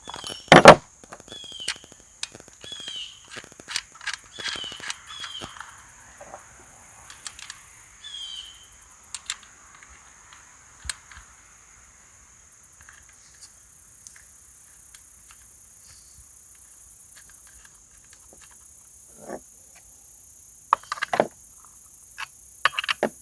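Light clicks and taps of metal parts being handled on a chainsaw's bar and chain, with one loud knock about half a second in. A bird chirps over and over in the first few seconds, over a steady high insect drone.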